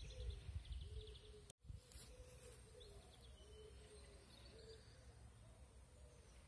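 Faint outdoor ambience: birds calling, with repeated short low calls and a few brief high chirps, over a low rumble. The sound cuts out for an instant about a second and a half in.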